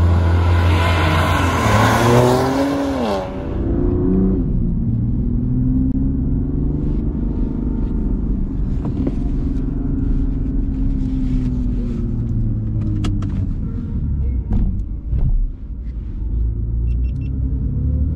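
BMW M2 CS's twin-turbo straight-six going by fast, its pitch dropping sharply as it passes. Then the same engine heard from inside the cabin, pulling steadily with its note slowly rising and easing off.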